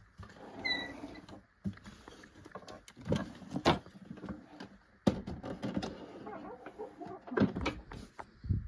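Irregular knocks, clicks and scraping, like things being handled and moved about, with a few sharper knocks about three and a half seconds in and again near the end; no motor is running.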